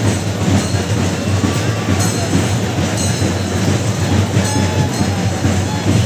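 A loud, unbroken din from a huge festival crowd, mixed with fast, dense temple drumming of a chenda melam.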